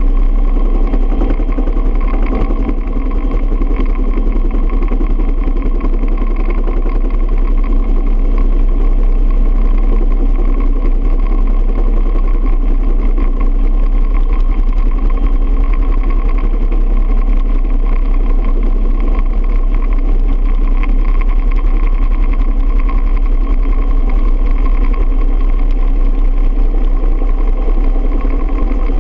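Bell UH-1 Huey helicopter in flight, heard from the open cabin: steady turbine and gearbox whine over a constant heavy rumble of rotor and wind.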